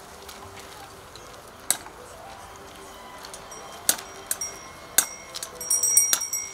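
A donkey's hooves clopping a few times on asphalt, spaced a second or more apart, then the metal chain of its lead jingling and clinking near the end.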